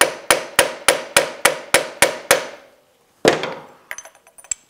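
A mallet tapping on an aluminium head setting tool, driving a rear-shock seal head down into the shock body below its retaining-clip groove: about nine quick, even knocks, roughly three a second, then one more knock after a short pause. A few light metallic clicks follow near the end as the parts are handled.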